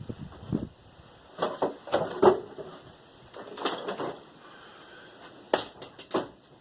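Irregular clinks and knocks of metal parts and hand tools being handled, coming in four short clusters with quiet gaps between them.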